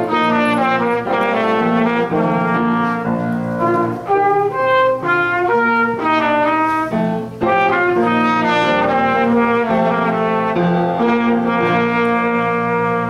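Trumpet played solo, a melody of short and held notes.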